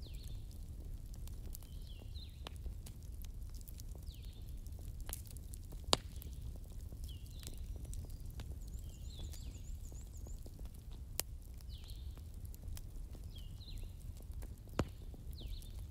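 Wood fire in a fireplace crackling: a low steady rumble with scattered small crackles and three sharper pops, about six, eleven and fifteen seconds in.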